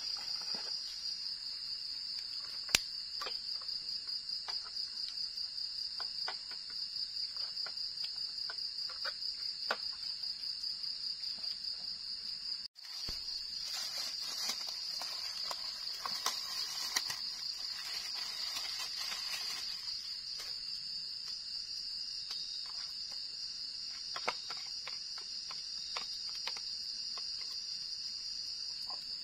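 Night insects calling in a steady, high-pitched trill that pulses rapidly, with scattered light clicks and knocks from cooking things being handled. The sound drops out for an instant about halfway through.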